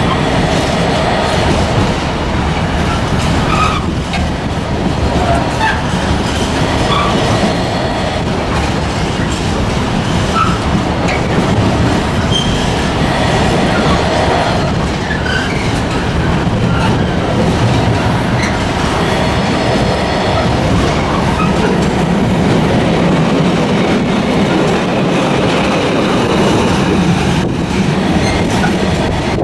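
Container freight train's flat wagons passing close by: a steady rumble and clatter of wheels on the rails, with short high squeaks scattered through it.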